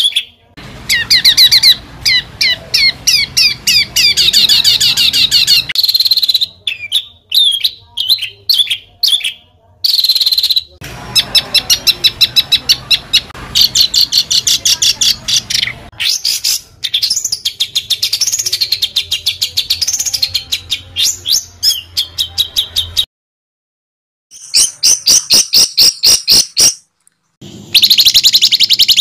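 Songbird singing harsh, rapid strings of repeated sharp notes and fast trills, in abruptly spliced phrases with a complete break about 23 seconds in.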